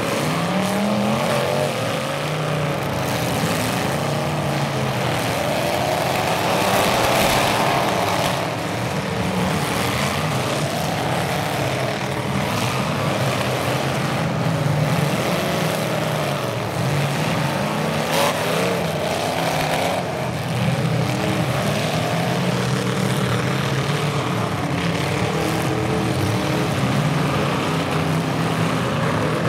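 Several full-size demolition derby cars' engines revving up and down together over a steady low engine drone, with a couple of sharp bangs from cars hitting each other.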